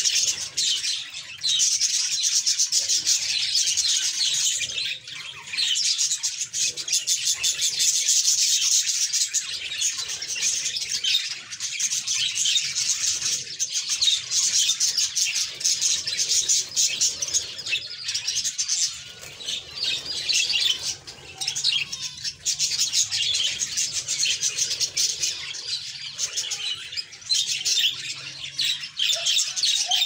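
A colony of budgerigars chattering, many birds calling at once in a continuous stream of quick chirps and warbles.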